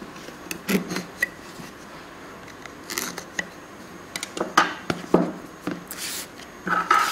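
A serrated knife cutting the seal on a cardboard phone box, then fingers picking and scraping at the box's sealed edge: a string of irregular short scrapes and clicks.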